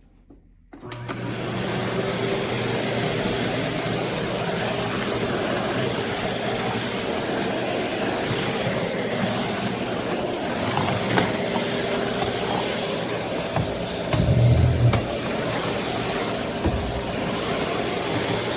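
Aspiron bagless canister vacuum cleaner switched on less than a second in, then running steadily with a low hum under its rushing air. A louder low thud comes about three-quarters of the way through.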